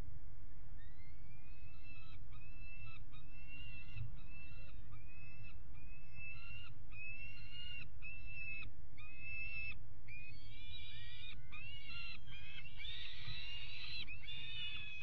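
Juvenile peregrine falcon begging calls: a rising, whining call repeated about once a second, growing louder and crowding together in the last few seconds as food is held out to it. A steady low rumble runs underneath.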